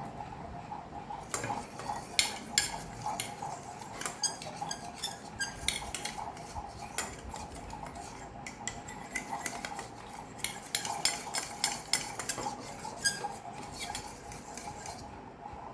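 A fork stirring thick baby-bird feeding formula in a bowl, clinking and scraping against the bowl in quick irregular runs.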